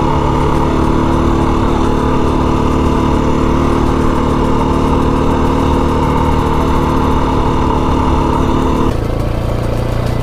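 Dirt bike engine running steadily under way. Its note drops about nine seconds in, as if the throttle eases off.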